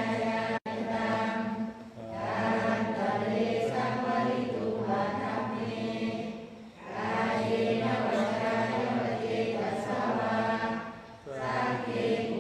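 Group of voices chanting Buddhist recitation in unison, in long sustained phrases with short breath pauses between them.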